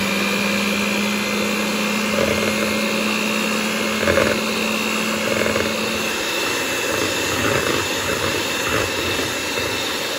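Hamilton Beach six-speed electric hand mixer running steadily with a motor whine, its beaters whipping egg whites in a plastic bowl toward soft peaks.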